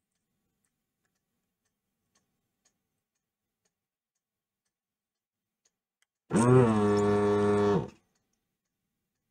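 Vacuum pump of a desoldering iron running for about a second and a half, a steady loud hum that starts about six seconds in, sucking molten solder from a capacitor's leads on a circuit board. Before it, near silence with a few faint ticks.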